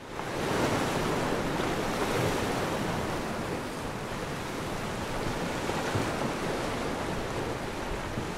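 Sea water washing in a steady, even rush of waves.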